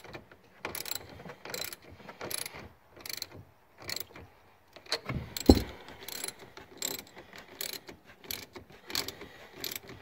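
Hand socket ratchet clicking in short strokes, one or two clicks a second, as a nut is tightened, likely the battery terminal clamp being reconnected. One louder knock about halfway through.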